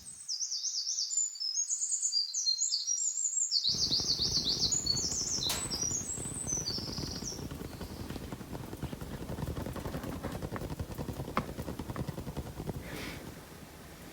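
Small birds chirping in quick, repeated high notes for about the first seven seconds. About four seconds in, a low steady outdoor background noise joins and carries on after the birds fade.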